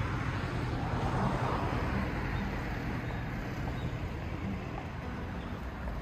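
Street traffic: a car passes by, swelling and fading about a second in, over a steady low rumble of road noise.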